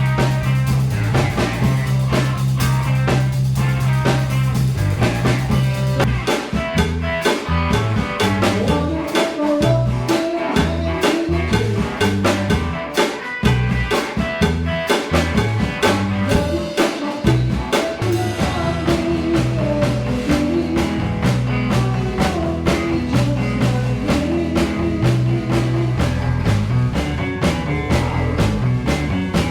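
Band music with drum kit, electric guitar and bass in a bluesy rock style. A held low note opens it, and the drums come in with a steady beat about six seconds in.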